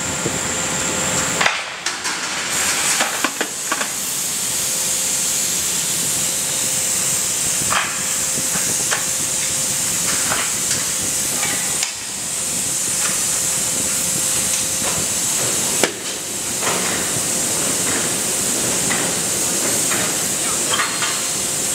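Drop-forging plant noise: a steady high hiss over a constant hum, with scattered metal clanks and knocks.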